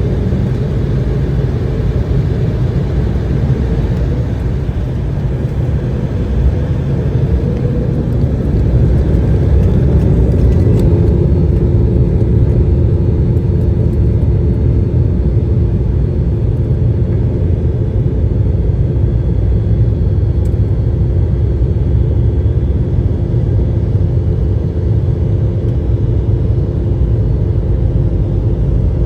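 Steady low rumble of jet airliner cabin noise from the engines and airflow. It grows a little louder about ten seconds in, where a steady hum joins and holds.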